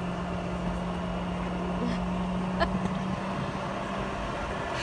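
Cabin noise inside a Boeing 717-200 airliner taxiing: a steady engine hum over a constant rushing noise, with one short click about two and a half seconds in.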